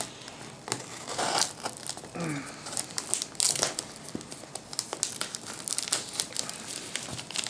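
Packing tape and paper covering crinkling, crackling and tearing in irregular bursts as a cardboard shipping box is cut open.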